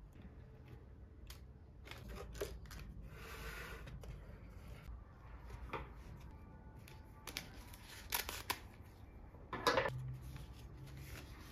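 Scattered sharp clicks and light knocks of small objects being handled, with a stretch of rustling about three seconds in and a few louder clicks near the end.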